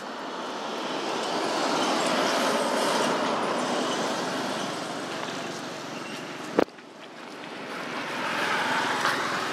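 Road traffic passing by: one vehicle's tyre and engine noise swells over the first couple of seconds and fades away by about six seconds, then a second vehicle approaches near the end. A single sharp knock comes about six and a half seconds in.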